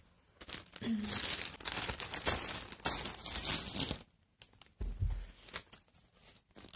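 Plastic courier mailer bag crinkling and tearing as it is cut open with scissors: a long stretch of rustling and ripping, a short pause, then a shorter burst about five seconds in.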